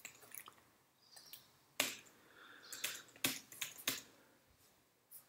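Computer keyboard keystrokes: a scattered handful of short, sharp key clicks with gaps between them, not steady typing.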